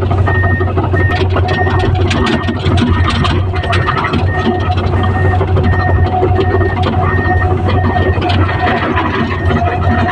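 Excavator's diesel engine running steadily under a travel alarm beeping about twice a second, with scattered knocks and scrapes of rock and earth.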